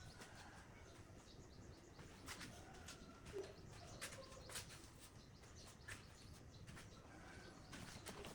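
Near silence: faint room tone with a few scattered light clicks and ticks.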